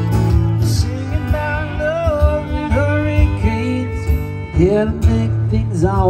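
Acoustic guitar strumming under a fiddle playing the melody: a country-style instrumental break between sung verses.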